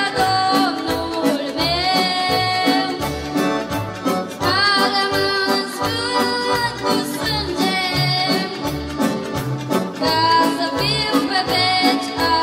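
Boy singing into a microphone while accompanying himself on a Korg Pa700 arranger keyboard, with chords and a steady built-in drum beat.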